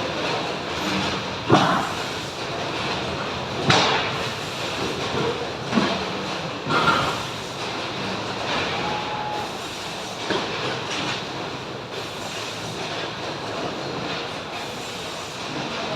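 Steady mechanical din with several sharp knocks, most of them in the first half, typical of a factory sound-effects recording.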